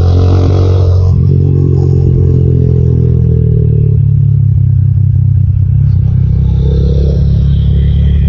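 Motorcycle riding at road speed, a loud steady engine drone mixed with wind rumble on the rider's microphone.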